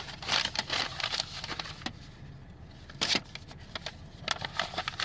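Rustling and handling noise, with scattered crackles and a sharp click about three seconds in.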